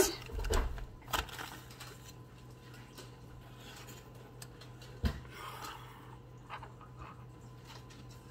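Quiet handling of ingredients and utensils over a mixing bowl: a soft bump just after the start, a click about a second in, a sharp knock about five seconds in and brief rustling after it, over a low steady hum.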